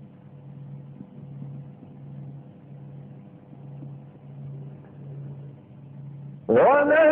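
A low hum that swells and fades a little more than once a second, then about six and a half seconds in a man's voice loudly begins a chanted Quran recitation, the note sliding upward as it opens.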